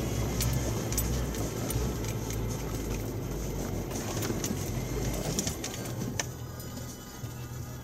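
SsangYong Korando's engine running under load, heard from inside the cabin as a low rumble, with scattered clicks and knocks from the body and fittings as it drives over sand dunes. The level eases slightly about two-thirds of the way through.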